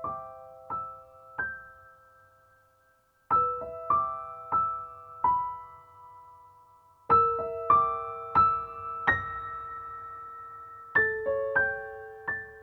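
Slow, gentle solo piano background music: short phrases of a few struck notes left to ring and fade, with brief pauses between the phrases.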